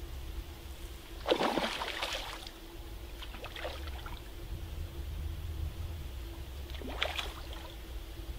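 A hooked mirror carp splashing at the water's surface as it is played towards the landing net. Two bursts of splashing, the first about a second in and the second, shorter one near the end.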